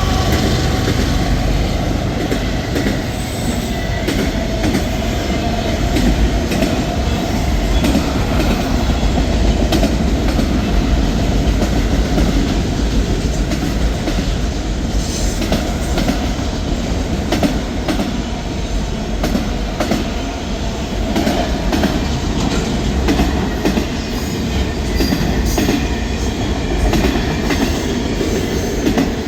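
Freight train cars rolling past steadily, wheels clicking over rail joints, with a faint wheel squeal fading out about a second in.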